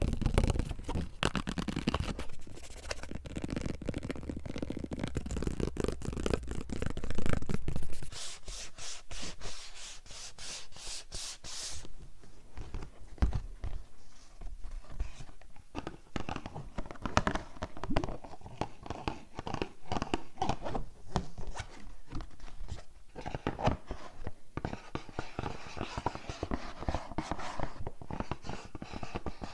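Close-miked ASMR triggers: rapid scratching and tapping on objects. The sound changes character abruptly about eight seconds in and again about twelve seconds in, as a different audio effect takes over.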